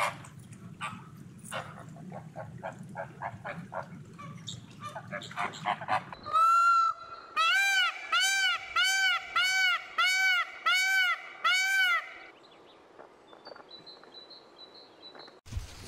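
A flock of flamingos honking, many short calls over a low murmur. About six seconds in, an Indian peafowl (peacock) gives one long call, then a loud, rapid series of about eight rising-and-falling calls. After that only a faint high bird chirp remains.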